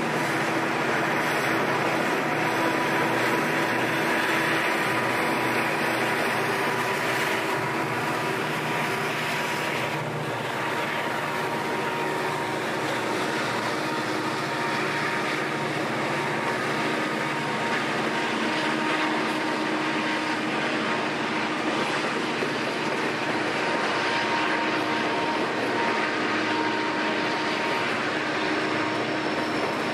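Conrail intermodal freight train's container and trailer flatcars rolling past: a steady, unbroken noise of wheels on rail.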